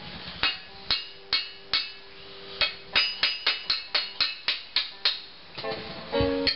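Sharp repeated taps knocking a tight-fitting iron katana tsuba loose along the tang, some with a short metallic ring, coming faster in the middle of the stretch.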